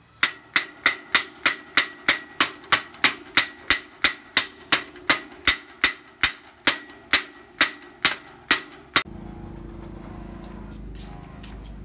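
Sharp metallic clicks at a very even pace of about three a second, each ringing briefly, from a rusty bicycle's rear axle and hub as an adjustable wrench is worked on the axle nut; they stop about nine seconds in, leaving a steady low hiss.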